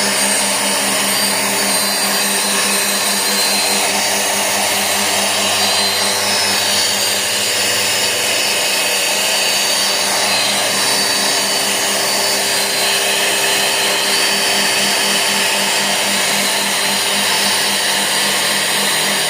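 CNC router spindle running steadily as it cuts aluminium composite (ACM) panel, a constant machine noise with several steady high tones over it.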